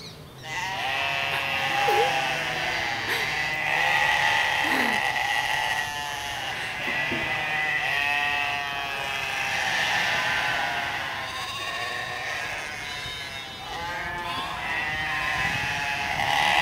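A herd of goats bleating loudly and without a break, many calls overlapping at once. They are calling for food that is late.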